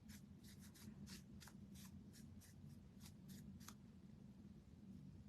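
Faint, quick scratchy strokes of hand work on a wooden craft piece, about three or four a second, stopping about three and a half seconds in.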